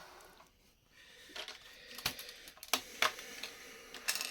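Lego bricks being handled, with about five sharp plastic clicks and taps starting about a second and a half in.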